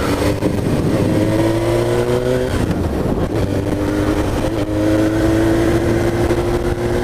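2004 Suzuki GSX-R1000's inline-four engine heard from the saddle while riding, its pitch rising slowly, breaking off briefly about two and a half seconds in, then climbing slowly again, under steady wind noise.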